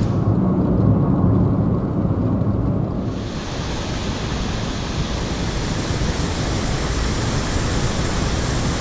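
Rushing mountain-stream water. For the first three seconds or so it is heavily muffled to a low rumble, then it opens into a steady full hiss.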